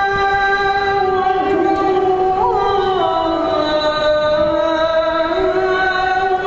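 A single voice holding one long melismatic note of an Arabic devotional chant, the pitch sliding down a little after about a second and a half and rising back near the end.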